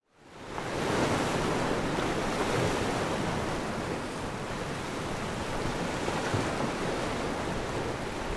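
Ocean surf washing up on a beach: a steady rush of breaking waves that fades in over the first second.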